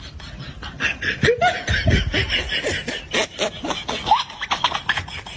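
A person laughing in rapid, repeated bursts, with a few short rising pitched sounds mixed in.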